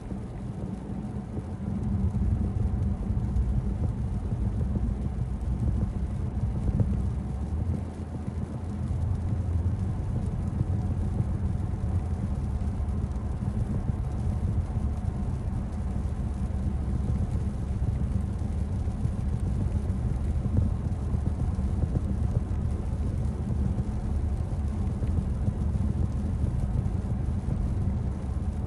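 Steady low rumble of road and tyre noise inside a car cruising on a wet road, getting louder about two seconds in.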